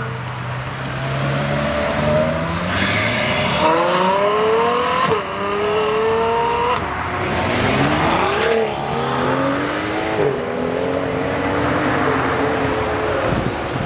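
Sports car engine accelerating hard: after a low, even running note, the engine pitch climbs from about four seconds in, drops back at each gear change and climbs again, four or so times in a row.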